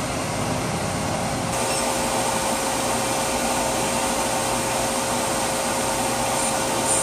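Bosch brake lathe running with a brake rotor spinning on its arbor: a steady motor whir with a steady hum running through it.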